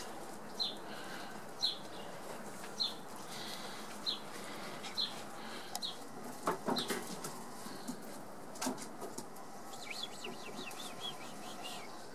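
A bird chirping: short high calls repeated about once a second, with a quicker run of small chirps near the end. A few sharp clicks or knocks come through midway.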